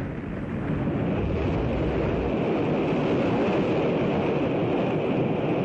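Steady, loud rumbling roar of the Atlas-Centaur rocket as it fails and breaks up after the explosion, heard on old, dull-sounding newsreel audio.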